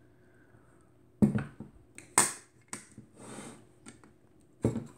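Clicks and light knocks from the folding metal viewfinder hood of a SEM Semflex twin-lens reflex camera being handled and folded shut, five or six sharp snaps over a few seconds, the loudest a little after two seconds in.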